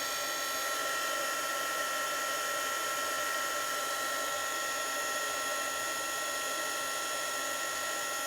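Handheld electric hot-air dryer running steadily, its fan motor giving a constant high whine over a rushing hiss as it dries wet paint.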